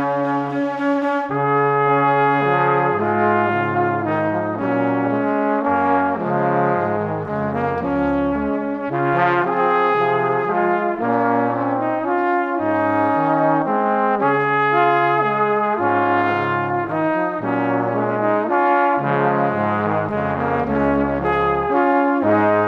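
Background music carried by brass-like instrument tones, with a moving melody over a bass line.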